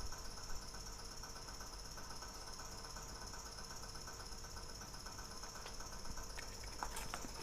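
Steady, even chirring of insects in the background, faint and unchanging, with a few light clicks near the end.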